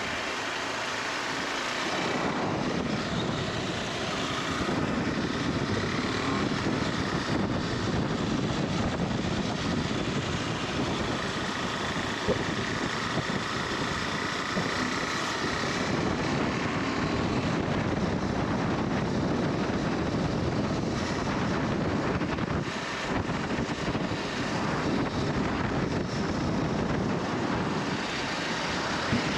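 KTM 390 Adventure motorcycle's single-cylinder engine running steadily on the move, mixed with wind noise on the microphone.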